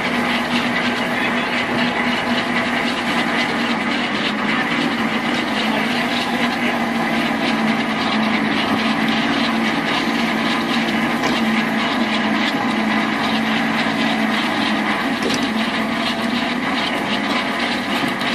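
Crab fishing boat's machinery running: a steady mechanical drone with a constant low hum.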